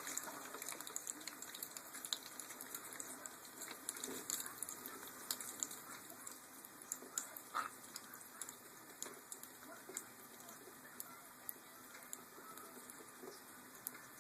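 Green-cheeked conure bathing in shallow water: faint, irregular small splashes and patters with light ticks as the bird flutters and dips.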